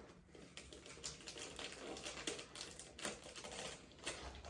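Wrapping paper on a gift box being picked at and peeled open by hand: faint, irregular small crinkles and clicks of paper and tape.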